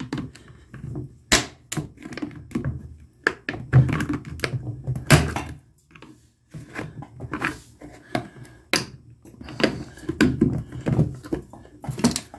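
Plastic top cover of a sealed maintenance-free car battery being pried off with a screwdriver: irregular clicks, cracks, knocks and scraping of plastic, with a brief pause about halfway through.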